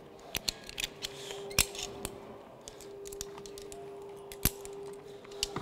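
Metal karabiners on rope-access cow's-tail lanyards clinking and clicking as they are handled and clipped into overhead anchors: a scatter of sharp metallic snaps, the loudest about a second and a half in and again near four and a half seconds, over a faint steady hum.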